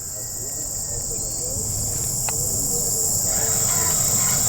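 Crickets or katydids calling in a steady, high, shrill chorus with a fast pulsing layer, over a low rumble that grows steadily louder.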